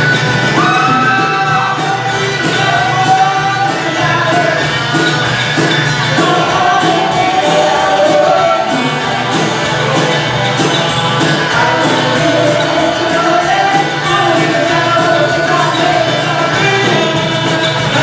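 Live band playing a rock song, with a woman singing lead over acoustic and electric guitars and a drum kit.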